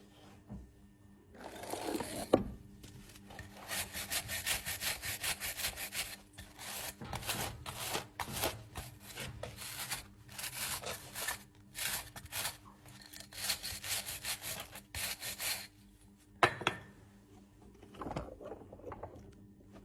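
A farrier's rasp scraping a horse's hoof in runs of quick, even back-and-forth strokes, with short pauses between runs. There is a single sharp knock about two-thirds of the way through.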